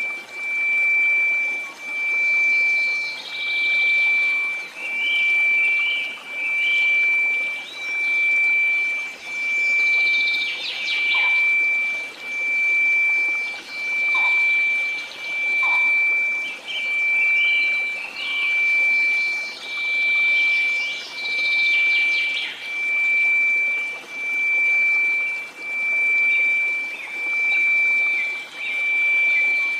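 A steady 2334 Hz sine tone swelling and fading in loudness about every second and a half, over a steady hiss of noise with scattered bird-like chirps.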